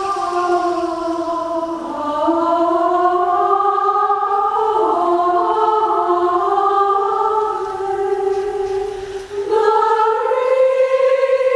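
A choir singing slow, held notes in harmony, with the voices gliding between chords and moving up to a higher sustained chord near the end.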